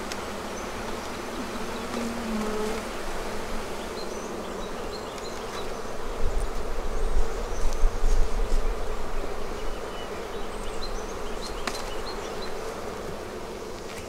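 Honeybees humming steadily in the air around an opened hive that is being closed up. A low rumble swells about six seconds in and dies away by about nine seconds.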